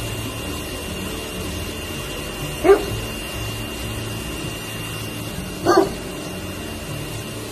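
Husky-type dog giving two short barks, about three seconds apart, over a steady low hum.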